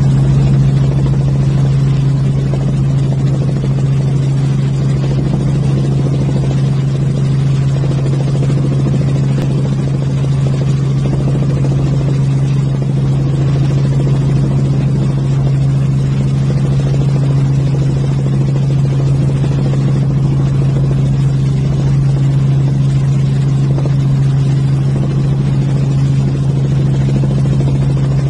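Light helicopter's engine and rotors droning steadily, heard from inside the cabin: a loud, constant low hum that holds one pitch.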